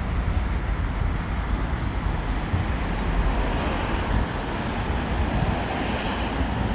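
ChME3 diesel shunting locomotive running with its repair train: a steady low rumble mixed with noise, with no horn blast.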